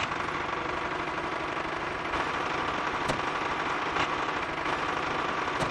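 Small motor of a miniature model tractor running steadily, with a few faint clicks.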